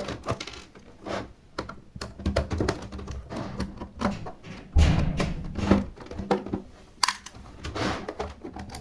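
Plastic computer keyboard being handled and opened up: irregular clicks, taps and knocks of plastic, with a heavier thunk a little under five seconds in.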